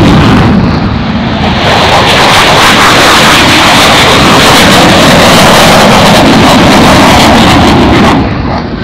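A Marine F/A-18 Hornet's two GE F404 turbofans at full power on climb-out after takeoff: a very loud jet roar with a rough crackle. It dips briefly about a second in and falls away sharply near the end.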